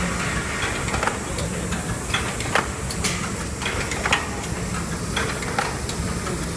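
Cellophane overwrapping machine running, its mechanism clacking in a steady rhythm about twice a second over a continuous motor hum.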